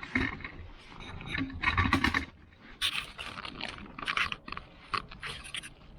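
A mailed package being opened by hand: a quick run of irregular scrapes, rips and rustles, with the loudest bursts about two and three seconds in.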